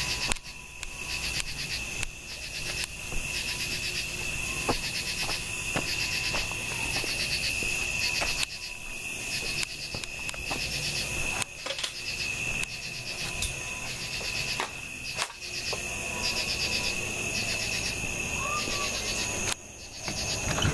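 Night chorus of crickets and other insects: a steady high trill under a pulsing chirr that repeats about once a second. A few light knocks come through now and then.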